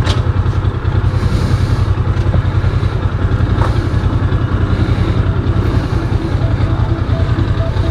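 Rusi Classic 250 motorcycle engine running steadily at low speed, with an even, rapid exhaust beat.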